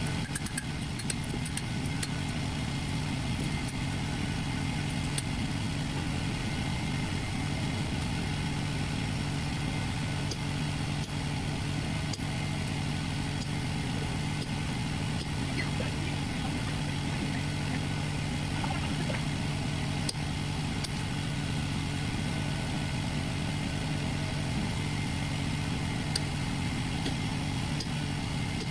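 Steady roar of a propane forge burner running, even in level throughout, with a few faint sharp ticks over it.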